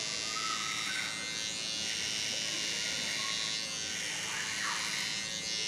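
Electric T-blade hair trimmer buzzing steadily as it cuts short hair close to the skin around the ear.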